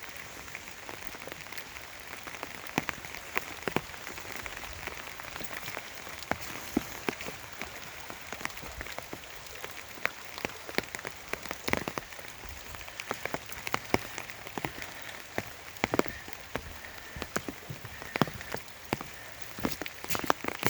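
Rain falling on an umbrella: irregular sharp taps of single drops hitting the canopy over a steady hiss of rain.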